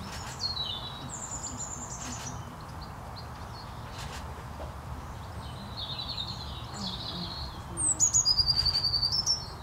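Small songbirds calling and singing: scattered high chirps and short trills, then a loud rapid trill about a second and a half long near the end, over a low steady background rumble.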